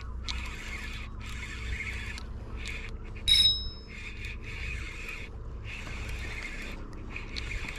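Spinning reel being cranked in short spells, whirring as the handle turns, while a hooked wrasse pulls on the line. A brief high squeal cuts in about three seconds in.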